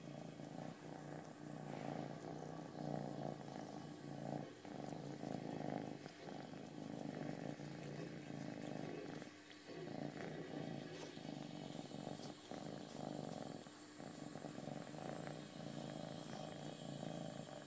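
Domestic cat purring steadily, with short dips every few seconds.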